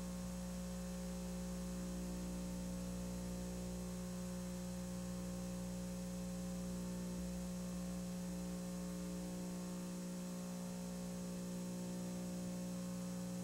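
Steady electrical mains hum with several overtones over a faint hiss, unchanging throughout.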